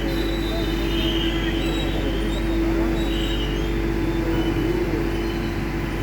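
Steady vehicle running noise: a low rumble with an unchanging hum.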